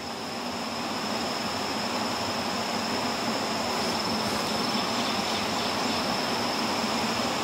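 A steady rushing noise with a constant high-pitched insect whine held over it.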